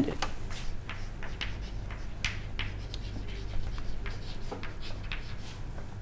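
Chalk writing on a chalkboard: a run of short, irregular scratches and taps as letters are chalked out, over a low steady hum.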